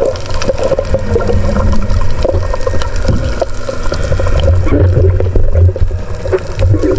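Underwater sound heard through an action camera's waterproof housing: a constant low, muffled rumble of moving water with many scattered clicks and knocks.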